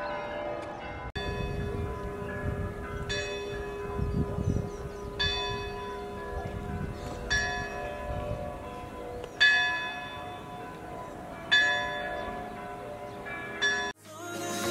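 A church bell tolling, struck about every two seconds, each strike ringing on into the next over a steady hum.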